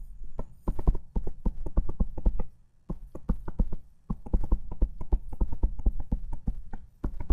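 Stylus tip tapping and clicking on a tablet screen while handwriting an equation: a quick, irregular run of sharp taps with a couple of short pauses.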